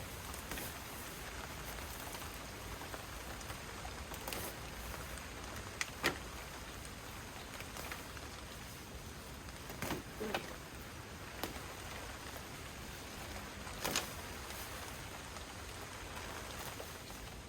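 Steady rain falling, with a few louder single drops or taps standing out, the loudest about six seconds in and others around ten and fourteen seconds.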